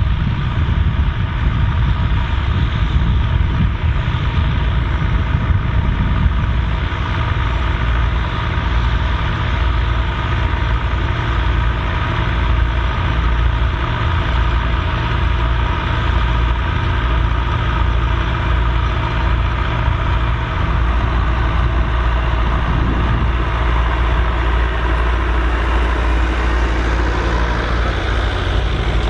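Volvo BM 2654 tractor's diesel engine running steadily while ploughing.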